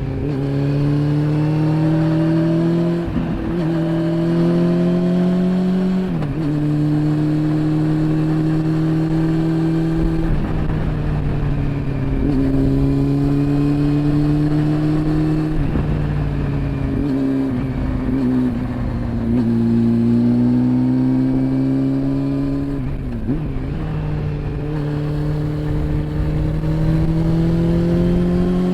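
Honda CB400 Super Four's inline-four engine pulling under way, its pitch climbing steadily and then dropping sharply several times as the rider shifts or rolls off the throttle.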